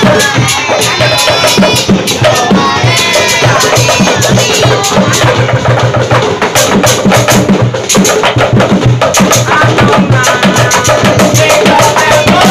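Obrog sahur street percussion: drums and knocking percussion beaten loudly in a fast, steady rhythm, with young men singing and chanting along in chorus.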